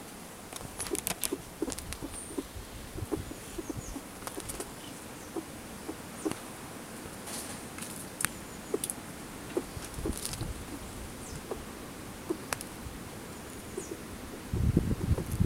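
Young Eurasian red squirrels' claws scrabbling over cloth trousers and against the camera: irregular small clicks and scratches. A louder low rumbling comes in near the end.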